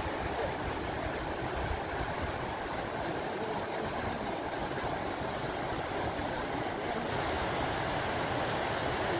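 Steady rush of a shallow river running over rocks, growing a little louder about seven seconds in.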